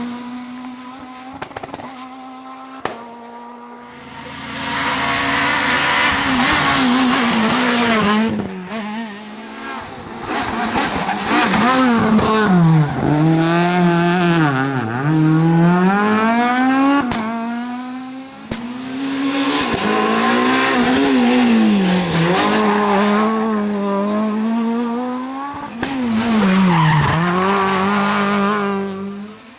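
Renault Clio S1600 rally cars' high-revving engines, driven hard: the revs climb and drop again and again with quick gear changes as the cars pass at speed. For the first few seconds there is a quieter, steadier engine note before the hard running begins.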